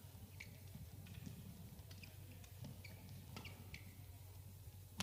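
Badminton rally: a string of short squeaks from players' shoes on the court, with a few sharp racket strikes on the shuttlecock, the sharpest at the very end.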